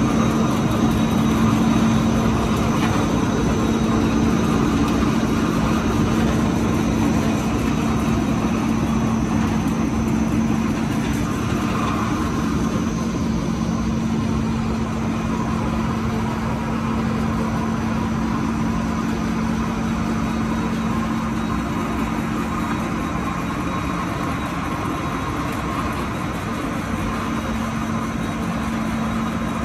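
Waste-fiber needle punching felt production line running: a steady mechanical drone with a strong low hum, slightly quieter in the second half.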